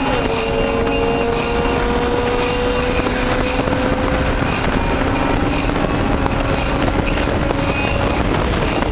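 Lotus Elise's four-cylinder engine running hard at speed, heard from inside the open cabin, with heavy road and wind noise. The engine note drops sharply right at the start, then climbs slowly over the next few seconds.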